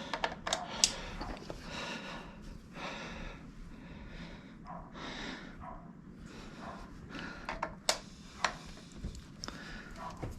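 Scattered sharp metallic clicks and taps of a wrench working a loosened nut off a motorcycle, with the loudest near the start and two more a little past the middle. Between the clicks there is a person's breathing.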